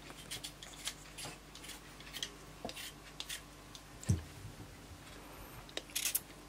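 Y-peeler scraping the skin off a raw potato in a run of short, quick strokes, with a dull thud about four seconds in as a peeled potato goes into the bowl.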